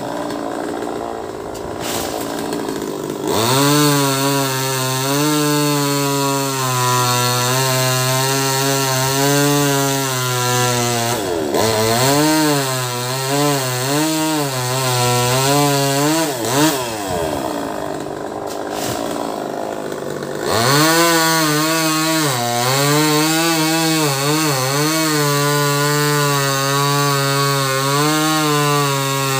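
Small two-stroke top-handle chainsaw idling briefly, then run at full throttle and cutting into a thick tree limb, its pitch wavering as the chain loads up in the wood. It drops back toward idle twice, briefly after about ten seconds and for a few seconds past the middle, before being revved up to cut again.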